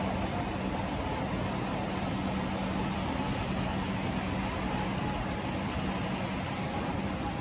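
Steady low outdoor rumble with a low hum held throughout and a faint higher tone near the end; no train passes.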